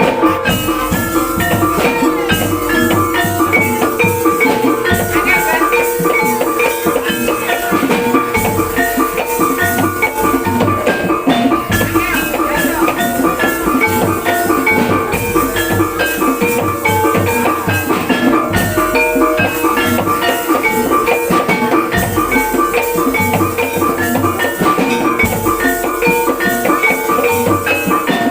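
Javanese gamelan music for barongan: rapid, repeating notes from bronze metallophones over drumming, played loud and without a break.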